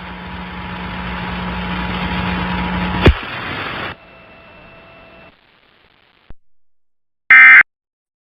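Broadcast static hiss with a low hum for about four seconds, with a sharp click near the end of it, then quiet. Near the end come two short, loud, buzzy data bursts about a second apart: the Emergency Alert System end-of-message tones that close the test.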